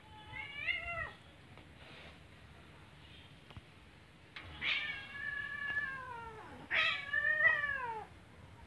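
A cat yowling in three drawn-out meows. The first is short, the second and third are longer and louder, and each bends down in pitch at its end.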